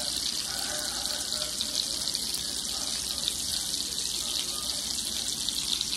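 Burger patties frying in shallow oil in a skillet: a steady sizzling hiss with fine crackles.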